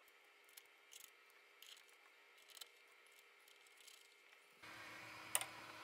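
Faint clicks and taps of hands fitting a plastic propeller onto an RC airplane's motor shaft, over quiet room tone. A little before the end the background steps up to a louder steady hum, and one sharp click sounds.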